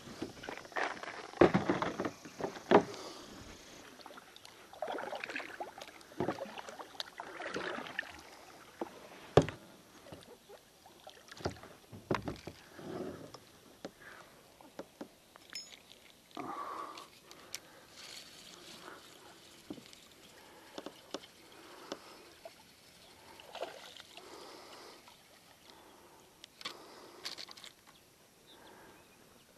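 Kayak being paddled while trolling: irregular paddle strokes and splashes in the water, with scattered knocks of the paddle and gear against the hull.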